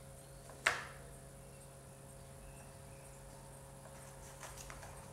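Green plastic ball-track cat toy knocked about by a kitten: one sharp plastic clack with a short ringing tail about half a second in, then a few faint clicks near the end, over a low steady room hum.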